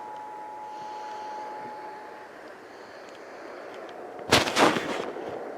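Off-air radio hiss under the tail of the Emergency Alert System two-tone attention signal, which cuts off about two seconds in. About four seconds in, a sudden loud crash lasts about half a second, in two hits.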